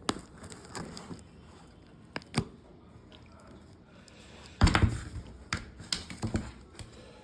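Parcel being cut open and unwrapped by hand: scattered sharp taps and clicks of packaging, with a louder burst of handling noise about four and a half seconds in.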